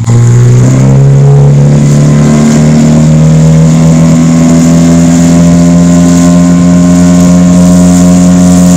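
Small tiller outboard motor on an inflatable boat revving up at the start, then running steady at high revs at full throttle.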